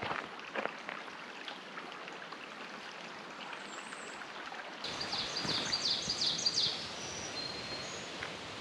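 A small songbird singing a rapid trill of short high notes for about two seconds, starting about halfway through, followed by a few brief whistled notes, over a steady outdoor hiss of woodland ambience. A couple of footsteps on the trail at the very start.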